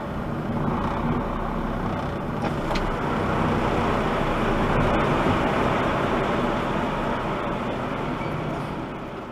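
Car engine and tyres as the car pulls forward and rolls across a concrete floor, heard from inside the cabin. The sound builds over the first few seconds and eases near the end.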